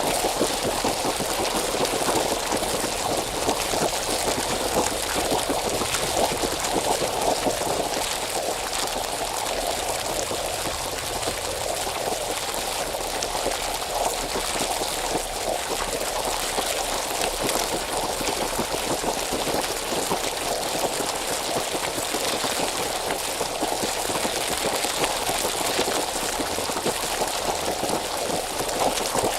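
Hot spring water bubbling steadily: a dense, continuous stream of small bubbles popping at the surface.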